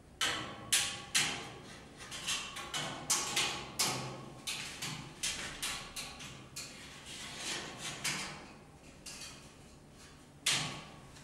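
Irregular knocks and clacks of wooden furniture parts being fitted together during sideboard assembly. A few sharp strikes come in the first second, then a run of lighter taps and clatter, with another strong knock near the end.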